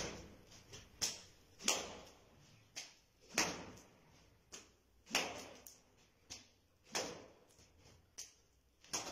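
A series of sharp strikes, about ten at uneven gaps of roughly a second, each dying away quickly.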